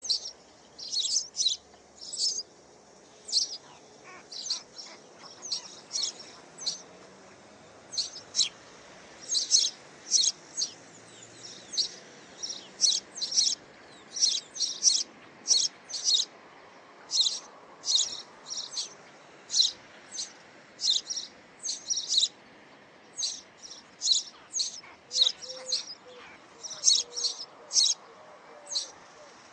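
Small bird chirping over and over, short high chirps in twos and threes, about two a second.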